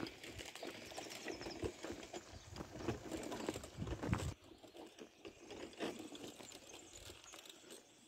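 Footsteps walking on a dirt and gravel track, an uneven run of short scuffs and knocks, stopping suddenly about four seconds in; fainter outdoor background follows.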